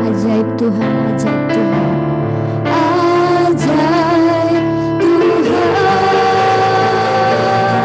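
Two girls singing a Christian worship song together into microphones, over instrumental accompaniment. From about three seconds in, the voices hold long notes with vibrato.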